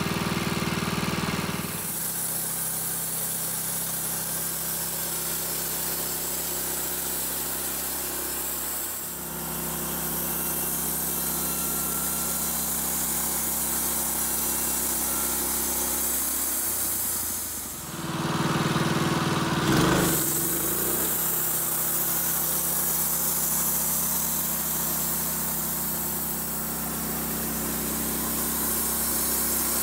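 Gas engine of a portable band sawmill running steadily as the blade saws through an eastern white cedar log. The engine note shifts a couple of times and changes briefly about two-thirds of the way through.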